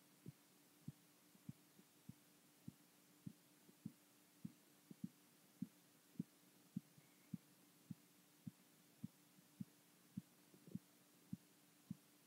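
Korotkoff sounds heard through a stethoscope over the brachial artery during a blood pressure reading: faint, regular tapping thumps, just under two a second (about 100 a minute), the pulse heard below the cuff as it deflates. A faint steady hum lies underneath.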